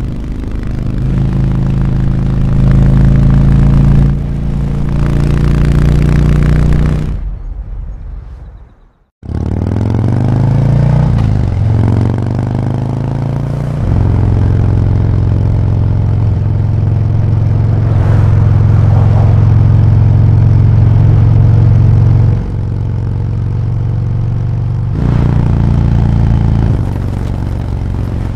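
V-twin motorcycle engine revved and held at raised revs, stepping up and down between steady engine speeds. It fades out and stops about eight seconds in, then revs climb again and hold steady for several seconds before dropping back.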